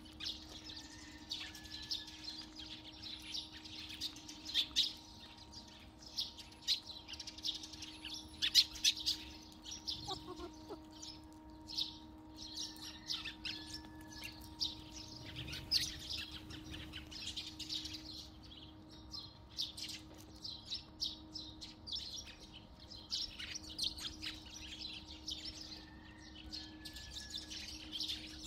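Eurasian tree sparrows chirping, many short chirps overlapping without a break.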